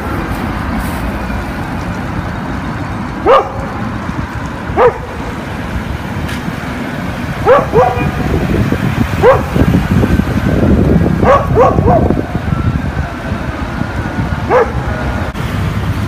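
A dog barking in short single barks, about nine in all, some coming two or three in quick succession, over the steady rumble of road traffic.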